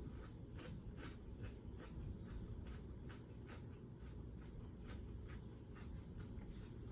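Close-up chewing of food, with a quick run of small wet mouth clicks and crunches at about three to four a second.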